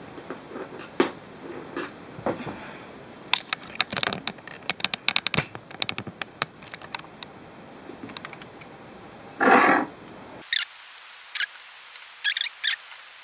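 Screwdriver tip and small metal screw clicking and scraping as the motor-mount screw of an electric RC car is unscrewed from its metal motor plate. A quick run of small clicks comes a few seconds in, a brief louder noise later, and a few sharp clicks near the end.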